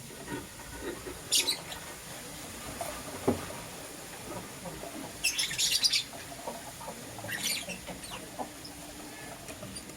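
Lovebirds chirping in three short bursts of high, rapid chirps, the longest about five seconds in, with a soft knock about three seconds in and faint scattered clicks between.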